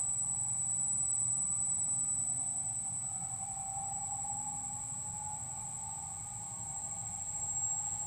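Three-phase motor running off a Lenze i500 variable-frequency drive at low speed, with a steady high-pitched whine from the drive. A mid-pitched motor tone rises slightly and falls back as the speed is nudged up from 20 Hz with the keypad arrow keys and then back down.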